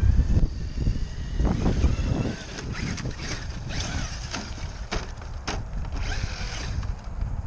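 Traxxas X-Maxx electric RC monster truck running over gravel, then a run of sharp knocks and clatter as it jumps off a gravel mound, lands and tumbles over. Wind rumbles on the microphone.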